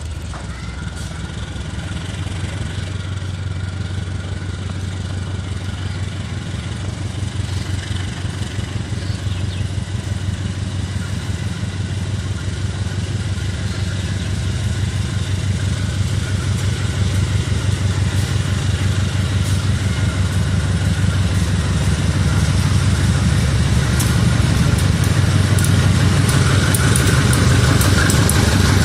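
Diesel locomotive engine running with a steady low rumble, growing gradually louder, with a few light clicks near the end.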